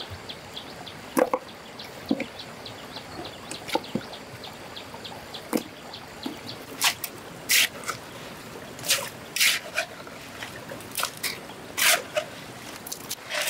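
Stones knocking and scraping as they are set into a rock wall, over a steady trickle of stream water, with several short splashes of water in the second half.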